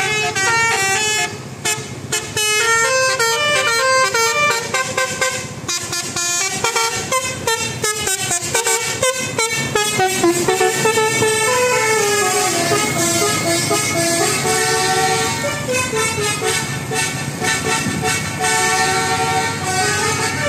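Telolet horn on a bus: a multi-tone musical air horn playing a fast tune of short stepping notes, with a brief break about one and a half seconds in.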